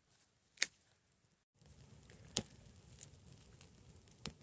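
Campfire of dry sticks and pine burning, crackling with a few sharp pops over a faint steady rush of flames.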